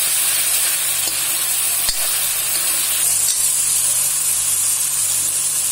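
Grated tomato and browned onions sizzling in hot oil in a steel kadhai while being stirred with a steel spoon, with a single sharp click about two seconds in.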